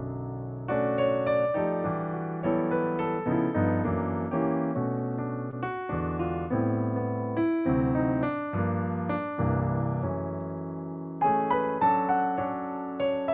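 Yamaha P-515 digital piano played solo: chords under a melody line, each note struck and left to ring away, with a louder passage starting near the end.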